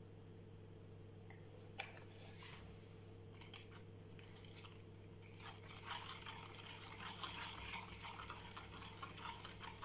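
A metal spoon stirring chocolate milk with dulce de leche in a plastic measuring jug, dissolving the dulce de leche. The stirring is a faint, rapid run of small scrapes and taps from about five seconds in, after a single click near two seconds, over a steady low hum.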